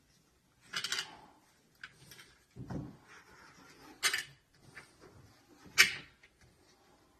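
Hand caulking gun squeezed repeatedly, giving several short, sharp clacks about every one to two seconds as it pushes out beads of subfloor adhesive onto luan plywood underlayment. The loudest clack comes near the end.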